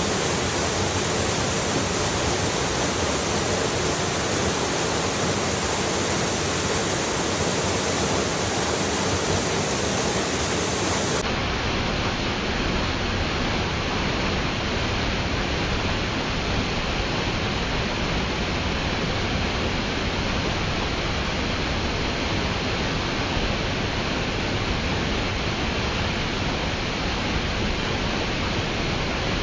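Waterfall pouring: a steady, even rush of falling water. About eleven seconds in, the sound changes a little: the hiss at the very top drops away and the low rumble gets slightly stronger.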